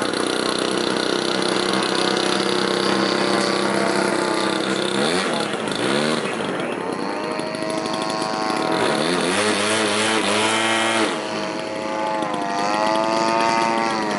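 Radio-controlled model airplane engine and propeller running at high power overhead, a steady drone at first, then swooping down and up in pitch several times as the plane passes and manoeuvres.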